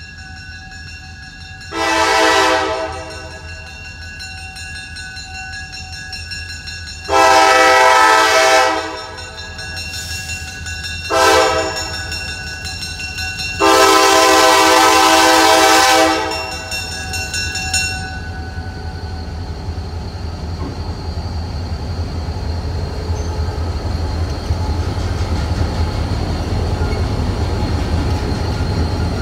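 Diesel locomotive air horn, Wheeling & Lake Erie 102, sounding the grade-crossing signal: four blasts of several notes, the third short. After that the locomotive's engine and wheels on the rails rumble louder and louder as it reaches the crossing.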